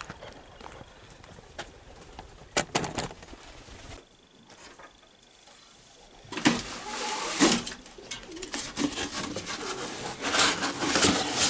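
Bird calls over handling noise: knocks and clicks, then a busy stretch of rustling and clattering from about halfway through as straw, wooden coop boards and a cardboard box are handled.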